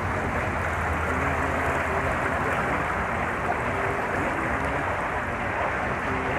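Steady rushing and churning of murky water welling up among the shore rocks: a dirty-water discharge leaking into the bay.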